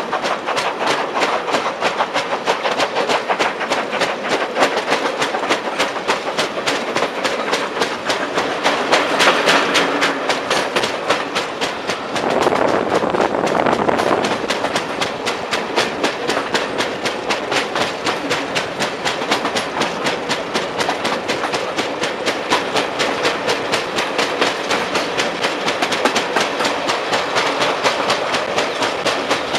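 A railway coach rolling along with a flat spot on one wheel, giving an evenly repeating knock several times a second over the steady wheel-and-rail noise. A louder rush swells for a couple of seconds about twelve seconds in.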